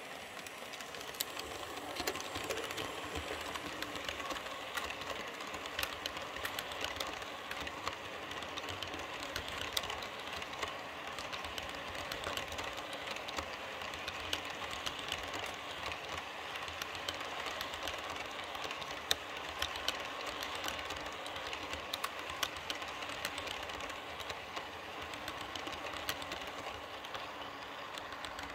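H0-scale model passenger coaches rolling past on model railway track: a steady wheel-on-rail rush with many quick clicks as the wheels cross the rail joints. It cuts off suddenly at the end.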